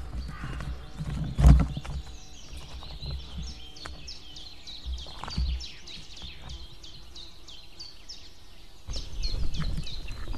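High-pitched bird calls repeated rapidly, several notes a second, broken by two loud thumps at the nest, about one and a half seconds in and again around five seconds in. Low wind rumble grows louder near the end.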